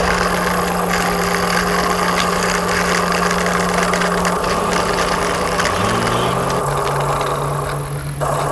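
A steady engine-like hum: a low drone that drops to a lower pitch with a short glide about five to six seconds in, over a rough, crackling noise.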